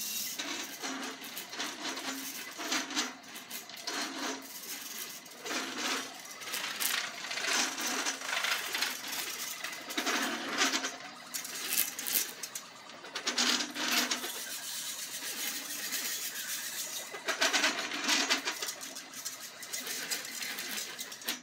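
Stepper motors of a homemade XY gantry CNC, run by Grbl, jogging through a coarse spiral of short straight moves: a buzzing whine with metallic rattle that starts and stops with each move, its pitch differing from move to move. Each move's length sets a different acceleration and top speed, so the gantry is shaken at a wide range of frequencies.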